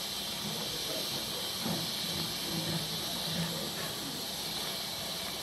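Steady hiss of steam escaping from a standing steam locomotive, GWR King class No. 6023 King Edward II.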